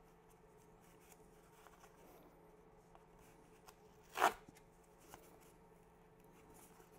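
A single short scratch of the Wuben G3 mini multitool's small blade cutting into corrugated cardboard, about four seconds in, amid faint rustles of gloved hands on the card. The blunt, short blade only scores the cardboard and does not cut through it.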